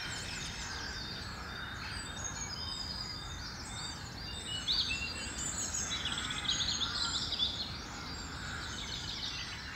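Dawn chorus: many songbirds singing at once, with overlapping chirps and trills, over a steady low background rumble.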